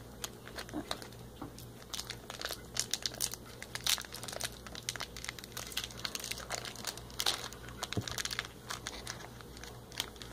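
Candy wrappers crinkling and tearing as the candies are unwrapped by hand, in a rapid, irregular run of crackles.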